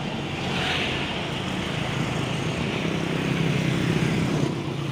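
A Sinar Jaya intercity coach passing on the road: a steady diesel engine drone with tyre noise, getting louder near the end.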